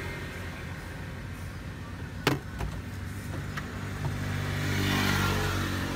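Motor vehicle engine running nearby, getting louder from about four seconds in as it passes and then easing. There is a sharp click a little after two seconds, with a couple of faint ticks after it.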